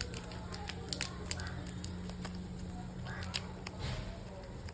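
Plastic packets of herbal powder being handled: scattered sharp clicks and two brief crinkles, about a second in and again near three seconds, over a low steady hum.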